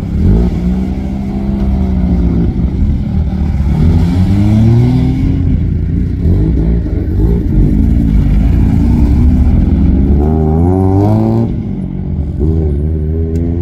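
Mazda RX-7 rotary engines revving as the cars pull away, the pitch climbing and falling with several blips of the throttle over a low engine rumble. A second rise in revs comes near the end as the next RX-7 drives off.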